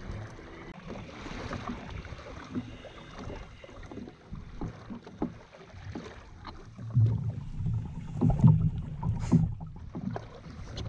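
Water slapping and lapping against the hull of a Jackson Coosa FD kayak, with scattered small knocks and wind buffeting the microphone, gusting louder about seven seconds in.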